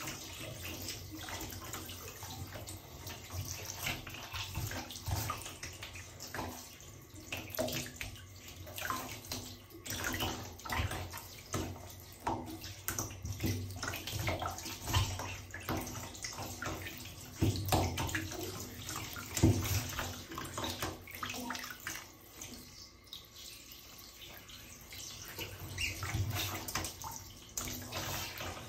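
Water splashing and sloshing in a bathtub as an Asian small-clawed otter swims and paws at it: irregular splashes, the loudest about two-thirds of the way through.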